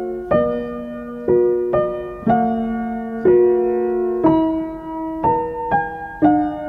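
Background music: solo piano playing slow chords, a new chord struck about once a second and left to ring.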